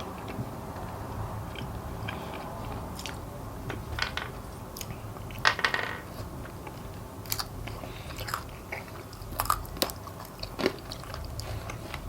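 Close-up chewing and biting into fried chicken wings, with irregular sharp crunches and cracks of the bones being bitten through. The loudest crunch comes about halfway through.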